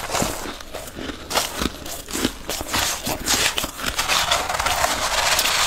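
Freezer frost crackling and crunching. Scattered crackles come first, from a mouthful being chewed. From about three seconds in there is a denser, steady crunching rasp as a metal spoon digs into a heap of loose frost.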